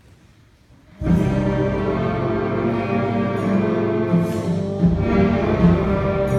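Orchestral music comes in suddenly about a second in after a quiet opening, with sustained chords and a high crash at its entry and again a few seconds later.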